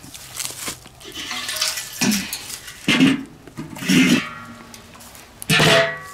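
Enamelled steel lid and bowl of a small kettle grill clanking as they are handled: four knocks about a second apart, the last one ringing briefly.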